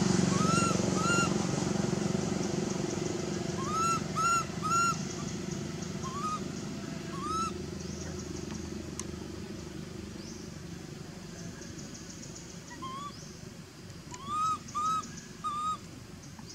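Baby macaque crying in short, high, arched calls, mostly in quick runs of two or three with pauses between. A steady low hum and a high hiss run underneath.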